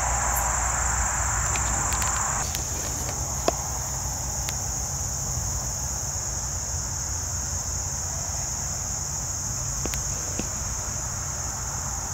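Crickets in a steady high-pitched chorus. A wider hiss under them drops away about two seconds in, and a few faint clicks sound over them.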